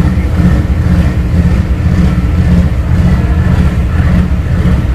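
Engines of the Dumai Express passenger ship running loud and low as it comes alongside to berth, a steady deep rumble.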